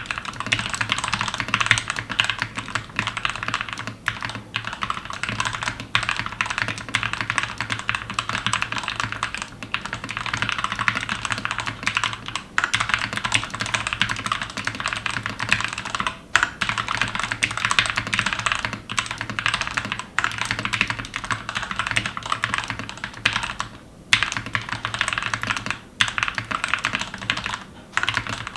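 Glorious GMMK TKL mechanical keyboard with linear Gateron switches being typed on quickly and steadily, a dense run of deep, thocky keystrokes. The typing breaks off for a moment a few times.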